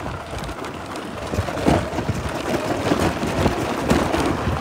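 Wind buffeting the microphone in a low rumble over the irregular crackle of scooter tyres on loose ground, while an electric scooter is ridden off-road.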